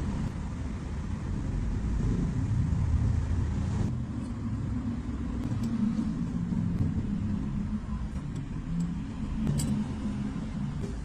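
Low, uneven mechanical rumble of a vehicle, with a few faint clicks.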